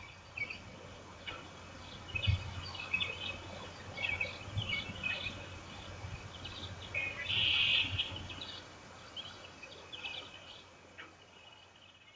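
Spring chorus of small songbirds chirping and trilling over a steady outdoor background, with the densest burst of calls about seven and a half seconds in and a few soft low thumps.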